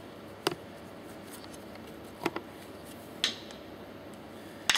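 A few short, sharp clicks and scrapes of a thin metal tool against a piston pump's plunger parts as the old plunger cups are prised off, the loudest near the end.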